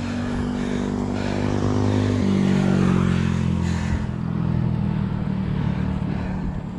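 A motor vehicle's engine passing close by. It grows louder to a peak a couple of seconds in, and its pitch drops as it goes past.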